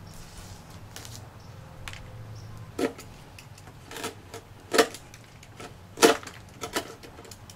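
Knife cutting through semi-hard, partly cured fiberglass around a steel mower deck's opening: several sharp, crackling snaps at uneven intervals from about three seconds in as the blade trims the resin and glass.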